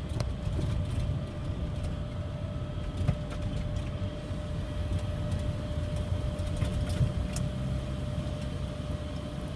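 Car driving along a road, heard from inside the cabin: a steady low rumble of engine and tyres, with a few light clicks.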